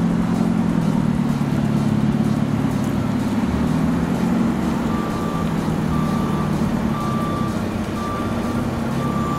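A steady, low motor hum, joined about five seconds in by a vehicle reversing alarm beeping about once a second.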